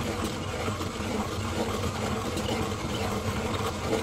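Hand-cranked coffee grinder grinding beans with a steady, rough grinding. The beans are being ground very fine, which makes the crank hard to turn.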